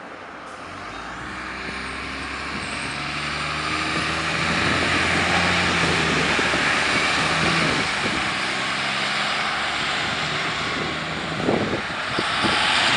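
City transit bus passing close as it pulls through a turn. Its engine and tyre noise build over the first few seconds and are loudest in the middle, and the engine's hum shifts pitch a few times as it accelerates.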